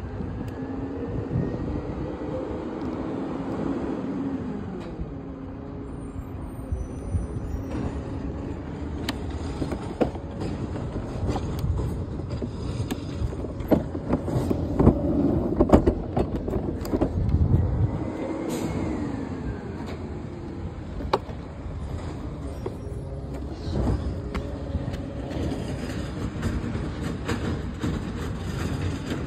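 Garbage truck working down the street: the diesel engine runs and revs, with a whine that rises and falls twice as the hydraulics work, and scattered clanks and knocks.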